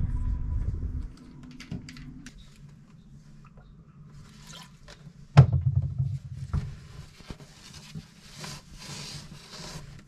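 Scattered light clicks and handling noise, one loud knock about five seconds in, then a run of short scuffing strokes as a cloth is rubbed over the inside of the fibreglass hull.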